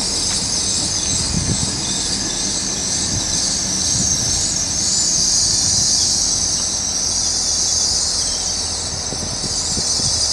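Two coupled Great Western Railway Class 802 trains running into a station, with a steady high-pitched squeal from the wheels over a low rumble. The squeal swells about five seconds in.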